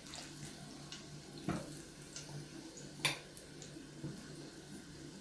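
Chicken pieces being dredged through flour and beaten egg in bowls: a few short clicks and knocks against the bowls, the sharpest about a second and a half and three seconds in, over a steady low hum.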